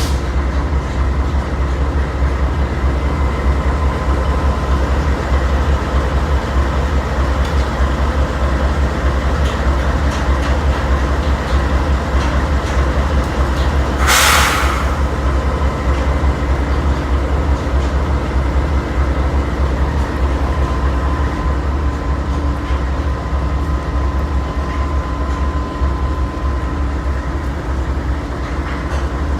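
Steady low mechanical rumble of a running vehicle, with a faint steady hum in it, and a short loud hiss about halfway through.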